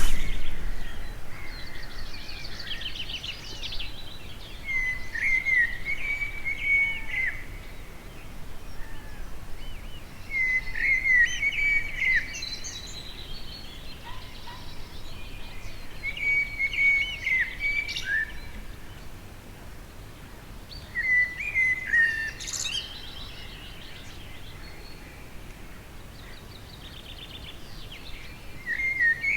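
Small songbirds singing in the open. Short warbled phrases come about every five or six seconds, with higher, thinner trills between them.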